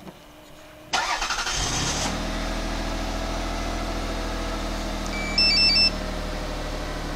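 Lexus RX300's 3.0-litre V6 cranked and started about a second in, catching quickly and settling into a steady idle. A short electronic beep pattern, the loudest sound, cuts in for about half a second past the middle.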